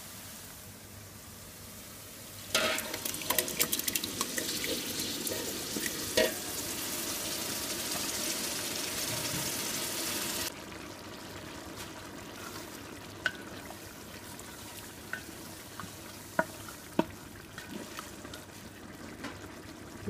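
Chopped onion frying quietly in oil in a pot. About two and a half seconds in, a loud sizzle with crackling starts as tomato purée hits the hot pan, and it cuts off suddenly near the middle. Afterwards a softer sizzle continues with a few scattered clicks.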